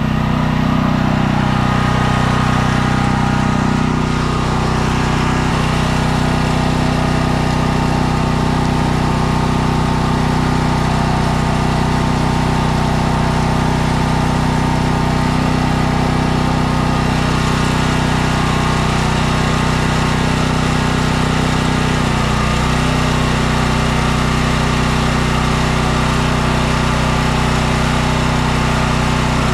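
Champion 100891 dual-fuel portable generator running steadily, a constant engine drone with a brief wobble in its note about three-quarters of the way through.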